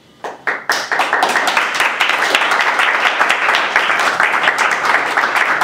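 Small audience applauding: a few scattered claps that quickly build into steady applause.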